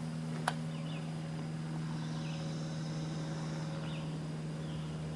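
Outdoor background: a steady low hum, with a single click about half a second in and a few faint high chirps.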